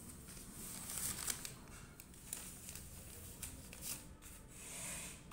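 Rubbing and rustling handling noise with scattered soft clicks, as the recording phone is held and moved. It comes in uneven bursts, loudest about a second in and again near the end.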